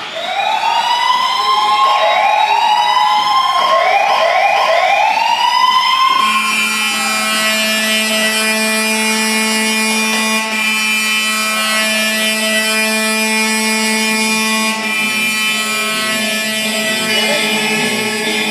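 Arena goal siren sounding for a goal, a series of rising whoops repeated several times a second, then changing about six seconds in to one long steady horn blast that holds to the end.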